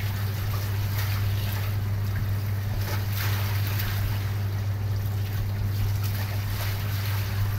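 Steady low electrical hum with hiss from a computer microphone recording setup, with a few faint clicks over it.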